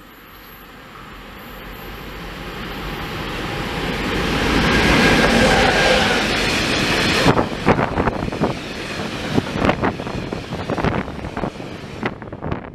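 Freight train passing at speed: its noise builds steadily as it approaches and peaks about five seconds in. A long run of tank wagons follows with fast, irregular clacking of wheels over rail joints, which fades away near the end.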